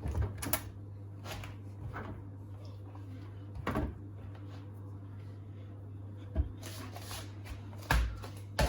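Laundry being loaded by hand into the drum of an Indesit condenser tumble dryer: scattered rustles and soft knocks a second or two apart, over a steady low hum.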